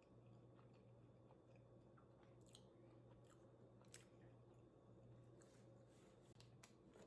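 Faint close-up chewing of food, with a few short soft clicks from the mouth, over a low steady hum.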